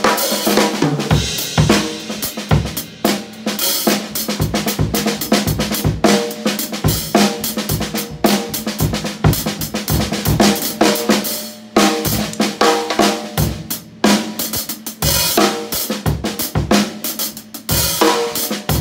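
A drum kit played in a continuous groove with sticks: snare, bass drum, toms and cymbals over Sabian HHX Evolution hi-hats with a brilliant finish.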